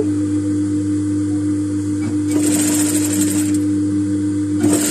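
JUKI industrial sewing machine stitching a seam through thin fabric in two short runs, one about two seconds in and another starting near the end, over a steady motor hum.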